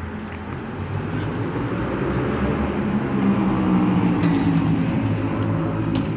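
A large motor vehicle's engine passing by with a low pitched rumble. It grows louder over the first few seconds, peaks around the middle, then fades, over general city traffic noise.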